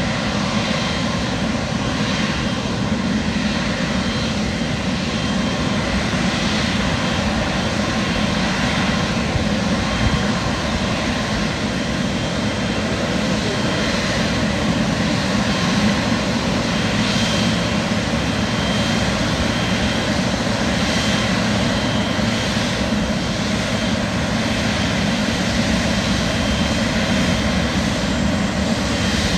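Jet airliner engines running, a loud, steady noise with no breaks.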